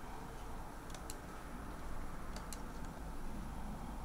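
A few faint clicks from work at a computer, two of them in quick pairs, over a low steady room hum.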